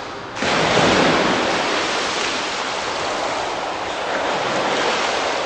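A swimmer dives into a swimming pool with a loud splash about half a second in, followed by the steady splashing of water as he swims.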